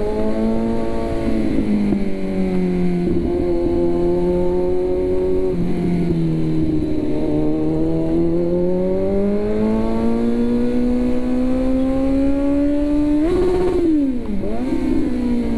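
Kawasaki Z900's inline-four engine running under way, its note sinking and rising slowly with the throttle. About 13 seconds in it revs sharply up, drops quickly, then climbs again.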